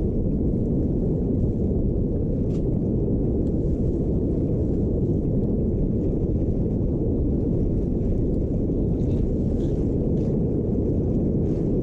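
Steady low rumble of wind buffeting the microphone on a boat under way, with a few faint ticks.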